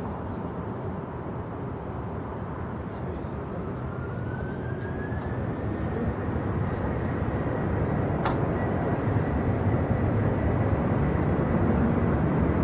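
Jet airliner engines: a whine that rises in pitch and then holds steady, over a rumble that grows louder.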